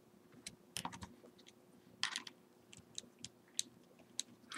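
Light, irregular clicks and scrapes of a small metal multi-wrench turning the spur gear nut on an RC truck, with plastic drivetrain parts knocking as it is worked loose.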